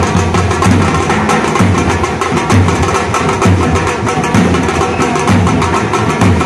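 A street drum band playing large drums slung at the side and beaten with sticks: a fast, loud, steady rhythm of deep beats under sharp stick strikes.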